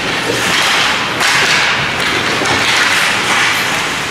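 Ice hockey play in a scramble for the puck: skates scraping on the ice and sticks and bodies knocking, the noise swelling sharply about a second in.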